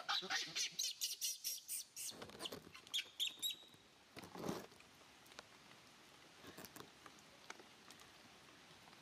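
Baby macaque giving a rapid run of short, high-pitched squeaks over the first three or four seconds, then falling mostly quiet.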